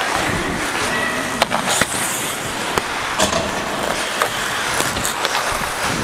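Ice hockey skate blades scraping and carving across the ice close to the microphone, a continuous rasping hiss, with a few sharp clacks in the first three seconds.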